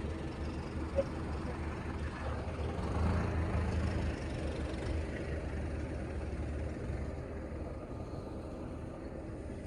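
Heavy diesel engine of farm machinery running with a steady low hum. It gets louder about three seconds in and fades over the last few seconds.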